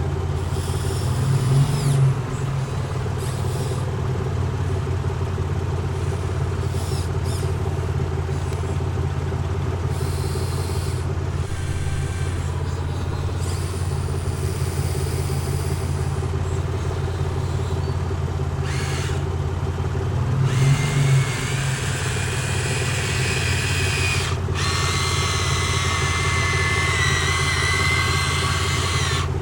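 Excavator engine running steadily, rising briefly twice, about a second and a half in and again about twenty seconds in. In the second half, a high, wavering whine joins the engine.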